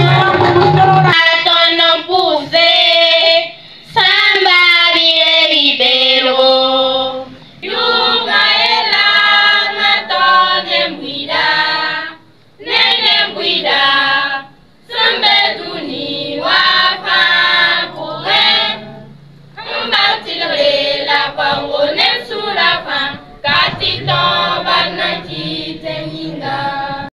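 Children's choir singing together without accompaniment, in phrases broken by short pauses. About a second in, the music before it cuts off.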